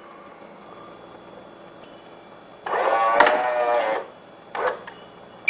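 Automatic bean-to-cup coffee machine making a loud mechanical whirr of over a second, about three seconds in, its pitch wavering, followed by a short quieter burst, over a faint steady high whine.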